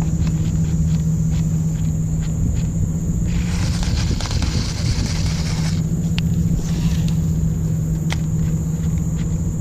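A baitcasting reel in use while fishing a topwater frog. About three and a half seconds in, a rushing whir lasting some two and a half seconds. Light clicks are scattered through, over a steady low hum.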